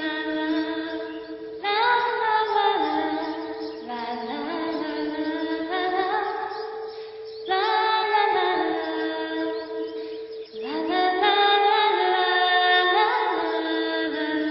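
A woman's voice singing softly in long held notes, with no words spoken. New phrases begin about two seconds in, around seven and a half seconds and near ten and a half seconds, each sliding up into its note over a steady held tone beneath.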